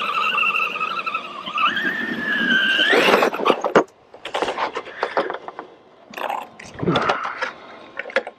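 Electric RC monster truck's motor and drivetrain whining steadily, stepping up in pitch under throttle and rising sharply before cutting off about three seconds in. Scattered clicks and scrapes follow as the truck is handled.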